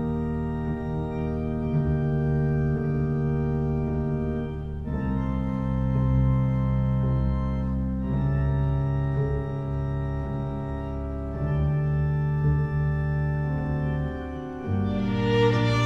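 Film-score music on an organ: long held chords that change every few seconds, with a violin coming in near the end.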